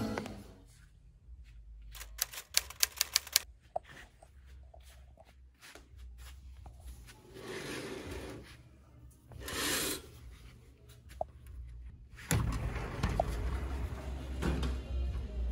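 A quick run of sharp clicks, then two rushing swells of noise as a room window is opened. About twelve seconds in, loud music with heavy bass from the neighbouring room comes in through the open window.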